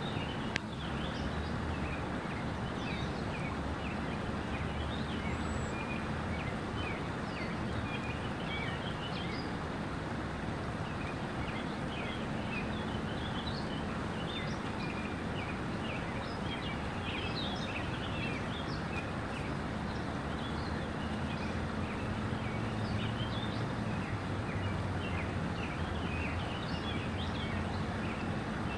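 Small birds chirping over a steady rushing background noise, with a low hum that grows louder about two thirds of the way through. A single sharp tap about half a second in.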